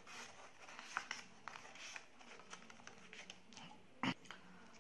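A sheet of origami paper being handled and folded: faint scattered rustles and light crackles, with one louder, short paper sound about four seconds in.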